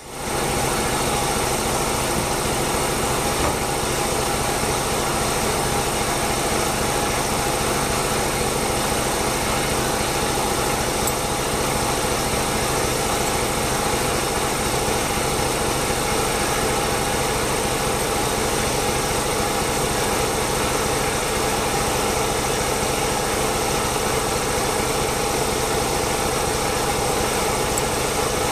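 Air compressor running steadily, starting just after the start.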